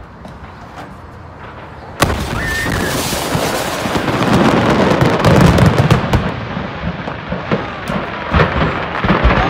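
A stash of commercial-grade fireworks exploding: a few scattered pops, then about two seconds in a sudden loud blast, followed by dense, continuous crackling and banging as the fireworks go off together.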